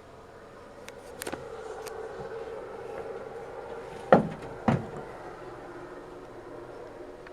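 A sharp click, then a few seconds later two loud thumps about half a second apart, like a door or lid being shut, over a steady low hum.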